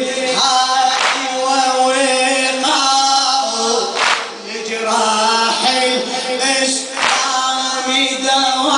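A latmiya, a Shia mourning chant: a male reciter through a microphone and a crowd of men singing together. Loud unison strikes land about every three seconds as the mourners beat their chests.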